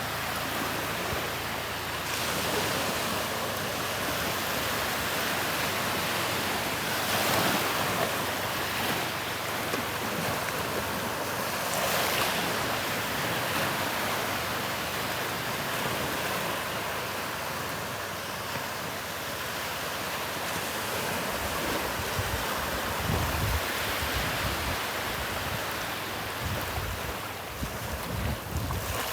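Gulf surf breaking and washing up the beach in slow swells. Wind buffets the microphone in gusts over the last third.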